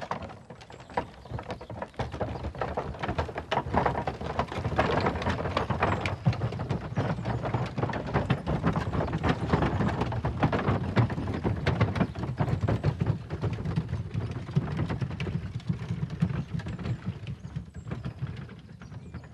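A horse's hooves clip-clopping at a walk together with the creaking rattle and rumble of a wooden-wheeled cart being drawn along. The sound grows louder a couple of seconds in and eases off near the end.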